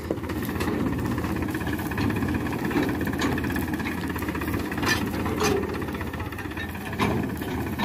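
Powertrac Euro 50 tractor's diesel engine running steadily under load as it tows a thresher, with a few sharp knocks and rattles.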